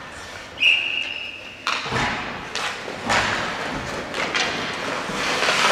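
A hockey referee's whistle blows one steady note for about a second. Then come ice skates scraping on the ice and sticks and puck knocking, with several sharp thumps.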